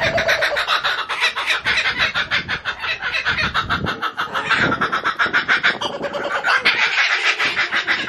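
Two laughing kookaburras calling together in their cackling laugh: a loud, fast run of repeated chuckling notes, several a second.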